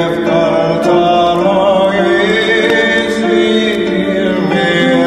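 Background music: slow, chant-like singing with long held notes.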